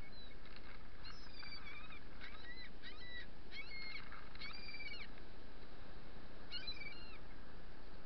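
Gulls calling in a run of short, harsh squawks from about a second in until about five seconds in, then again near the end, as they squabble over food. Steady surf wash underneath throughout.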